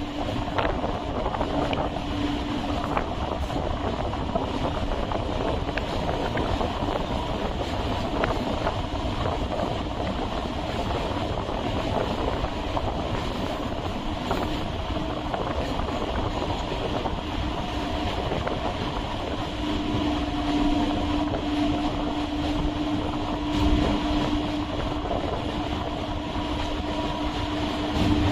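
Chennai MRTS electric suburban train running: a steady rumble and rattle of the wheels on the track with scattered clicks. A steady hum grows stronger about two-thirds of the way through.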